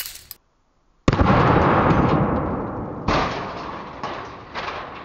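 Blast of a 12-gauge pump shotgun firing double-aught buckshot: a sudden heavy bang about a second in that rumbles on and fades over several seconds, with two more sharp hits near three and four and a half seconds in.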